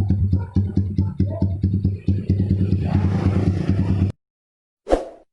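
Music with a steady beat and a held bass line that cuts off abruptly about four seconds in, followed by a brief whoosh-like sound effect.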